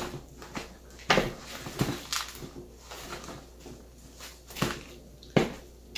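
Hand pruners snipping through the woody stems of a cut-back coleus: several sharp clicks a second or more apart, the loudest near the end.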